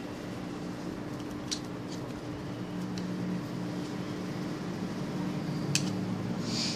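A few light clicks of plastic spectacle frames being handled as a yellow clip-on night-driving lens is taken off the frame, the sharpest one near the end. A steady low hum from a fan or air conditioner runs underneath.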